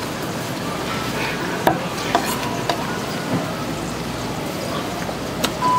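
A kitchen knife chops through sundae (Korean blood sausage) onto a wooden cutting board, giving a few sharp, spaced knocks over a steady hiss. A steady beep starts right at the end.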